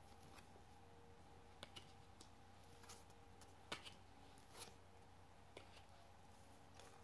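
Faint, scattered clicks and taps of cards being drawn from a deck and laid down on a table, about ten in all, over near silence with a faint steady hum.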